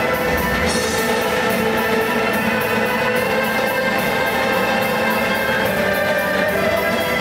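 Bagpipe band playing live: several bagpipes sounding held, steady notes together over a steady beat of drum kit and a large bass drum.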